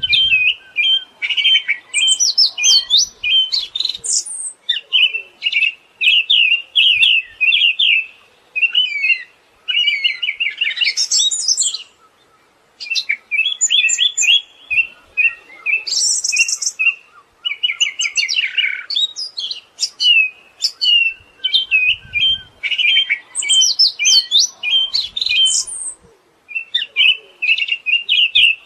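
Siberian thrush singing a fast, chattering song of rapid short chirps and trills. The song runs in long phrases, broken by brief pauses about twelve seconds in and near the end.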